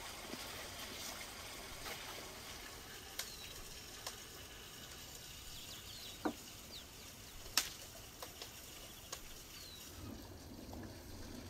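Outdoor ambience: a steady rush like running water, with small birds giving short falling chirps several times and a few sharp clicks and knocks, the loudest about six and seven and a half seconds in.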